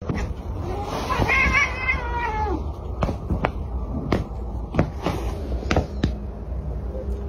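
A house cat gives one drawn-out meow that rises and then falls, followed by a run of about seven sharp clicks over a steady low rumble.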